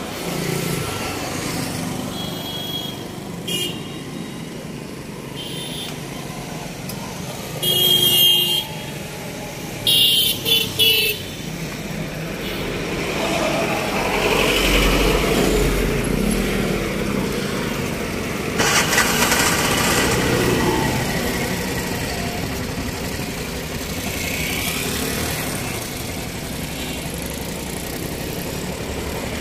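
Road traffic running by with vehicle horns: one horn blast about eight seconds in, then three short toots a couple of seconds later.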